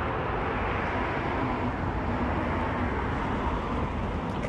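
Steady street traffic noise: a continuous rumble with passing vehicles, swelling slightly about halfway through.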